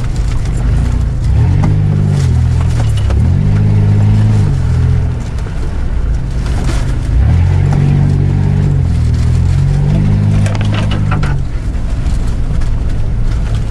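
Off-road 4x4's engine heard from inside the cab, revving up and easing off about four times as it drives over rough ground, with scattered knocks and clatters.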